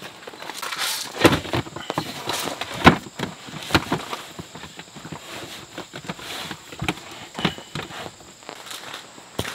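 Camping gear being handled and packed: irregular knocks, clatter and rustling as sleeping bags are pushed into a plastic storage box and gear is shifted into an SUV's cargo area, about a dozen sharp knocks in all.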